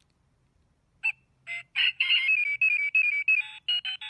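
Xinjia XJ-768E talking wristwatch playing an electronic tune through its small speaker: a quick run of short beeping notes, starting after a near-silent first second and a brief chirp.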